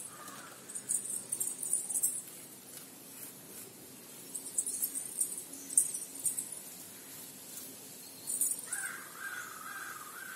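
Birds calling: clusters of short, high chirps, and a longer wavering call near the end.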